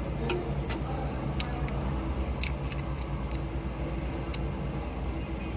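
A diesel engine idling steadily, with scattered light metallic clinks of tools on metal.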